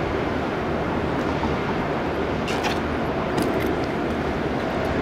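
Boeing 777-200's twin jet engines at takeoff power, heard distant and head-on: a steady roar with a faint hum as the airliner begins its takeoff roll.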